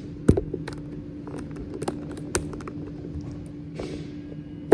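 A few sharp clicks and light knocks, the loudest just after the start, over a steady hum: handling noise as the phone is clipped into its camera mount.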